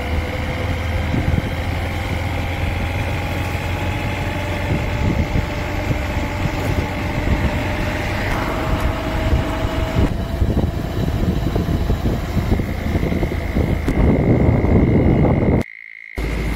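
Engine and road noise of a vehicle being ridden along a road, a steady low rumble with a thin steady high tone running through it. The sound drops out for about half a second near the end.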